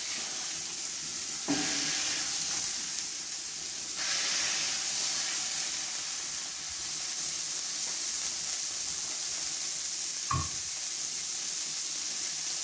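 Smash burger patties of beef mince sizzling on a hot flat-iron griddle, the sizzle growing louder about four seconds in. There is a knock about a second and a half in and a sharper knock about ten seconds in.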